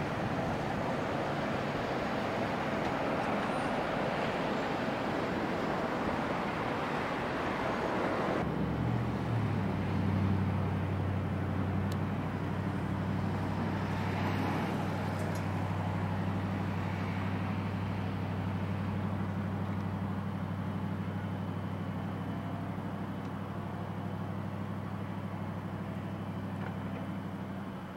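A train's steady rumble at the station, cut off suddenly about eight seconds in. It is replaced by the steady low drone of a Norfolk Southern EMD SD60E diesel locomotive approaching at the head of a freight train.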